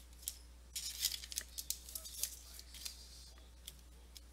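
Football trading cards being handled and shuffled through: short, crisp rustles and clicks of card stock, thickest in the first half, over a faint steady low hum.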